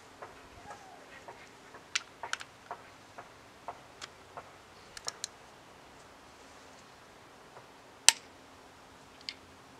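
About a dozen sharp knocks and clicks with uneven gaps, the loudest about eight seconds in. They are hammering from house construction, mixed with the metal clink of a socket and breaker bar on the KA24DE's cylinder-head bolts as the bolts get their final 90-degree turn.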